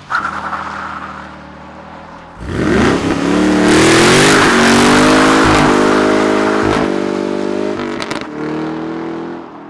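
Holden Commodore SS-V ute's V8 revving hard in a burnout. It runs low for about two seconds, then climbs sharply and is held at high revs for several seconds, and drops back to a lower note near the end.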